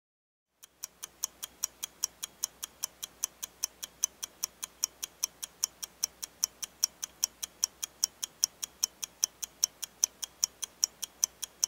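Clock ticking sound effect: an even, quick run of sharp ticks, several a second, starting about half a second in after silence.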